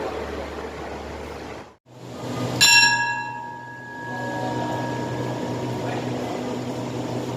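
Railway station bell chime, struck sharply twice about five seconds apart, each strike ringing on for several seconds with clear bell-like tones over a low steady hum; it is the signal ahead of a platform announcement. Before it, a short stretch of train running noise cuts off.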